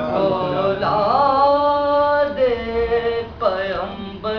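A man's voice chanting an Urdu salam, a Muharram devotional poem, in a slow melodic recitation with no instruments. He draws out long held notes that slide up about a second in, then drop to a lower held note a little past the middle.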